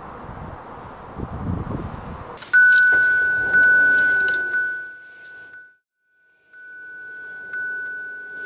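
Outdoor breeze, then a Kia car's electronic warning chime in the cabin: a high ding sounded about three times, each ringing out, with a few light clicks.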